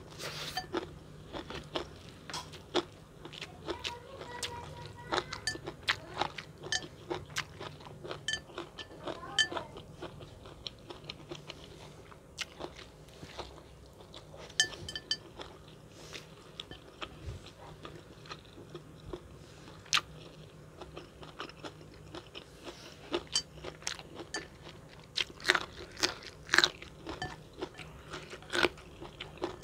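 Close-miked mukbang eating of unbattered fried chicken and long-bean chilli sambal: irregular crunching bites and chewing, with a burst of the loudest crunches near the end.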